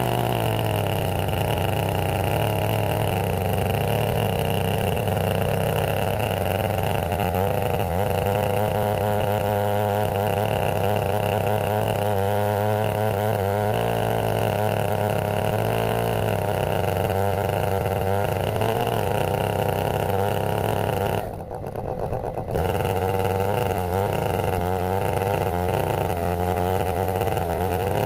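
Stihl 070 two-stroke chainsaw running steadily at high revs under load, ripping a black walnut log on an Alaskan chainsaw mill. A short dip in level comes about three quarters of the way through.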